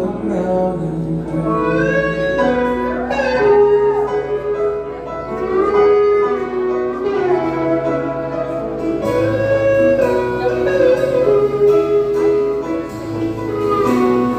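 Live country band playing an instrumental passage: guitars carrying it, with a lead line that slides and bends between notes.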